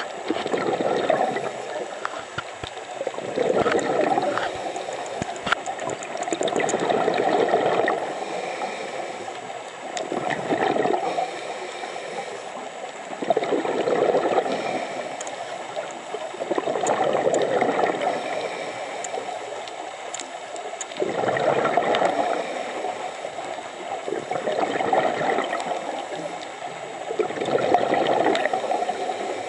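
Scuba regulator exhaust bubbles heard underwater: a burst of bubbling with each exhaled breath, repeating about every three to four seconds.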